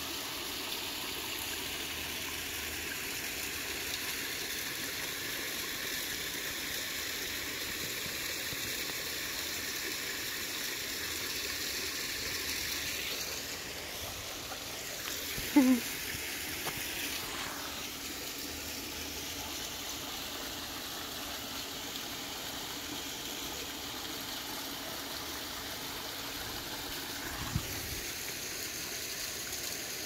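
Water from a rock waterfall running steadily into a backyard swimming pool. About halfway through there is one brief pitched sound.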